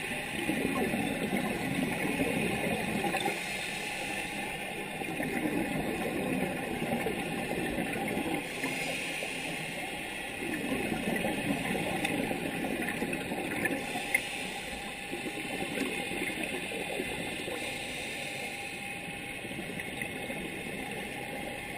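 Scuba breathing through a regulator, heard underwater through a camera housing: long bubbly exhalations about every five seconds, with a short hiss of inhalation between them.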